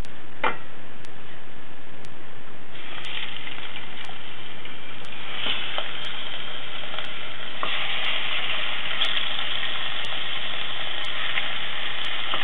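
Salted and peppered meat pieces sizzling as they are laid into a hot stainless-steel pot to brown. The sizzle starts about three seconds in and grows louder in steps as more pieces go in, near five and a half and eight seconds, then holds steady. There is a short sharp knock about half a second in.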